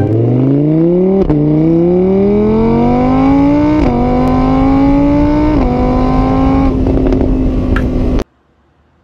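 Motor-scooter engine sound revving up through the gears: the pitch climbs, drops sharply at each of three gear changes, then holds level before cutting off suddenly near the end.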